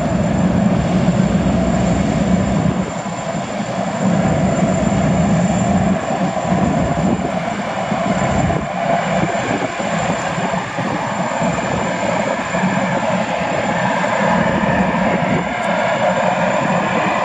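Boeing Jetfoil 929's twin gas turbines running at cruising power while the hydrofoil passes foilborne, a steady jet-like rush with a thin high whine held throughout. The waterjet wake and spray add a hiss of rushing water.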